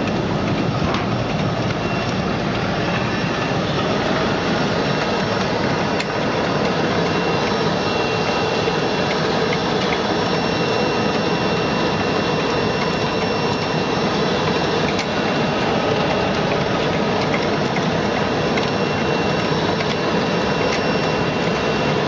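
Steady running noise of fish-washing machinery: water churning and bubbling in a bubble-type washer tank, then, from about four seconds in, a rotating stainless mesh-drum fish cleaning machine and its gear motor running with a steady whine and rattle.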